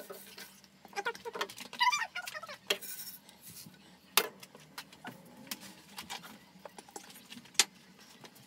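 A plastic spatula scrapes and taps a nonstick frying pan while rice grains are dry-roasted and rattle across it. There are scattered sharp knocks of pan and utensil, the loudest at about four seconds and about seven and a half seconds in.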